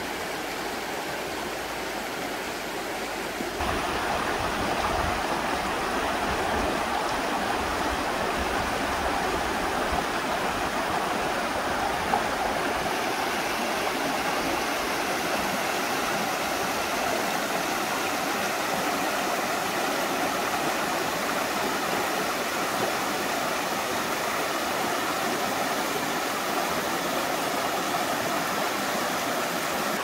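Shallow mountain stream rushing over rocks and cobbles, a steady sound of running water that gets louder about three and a half seconds in.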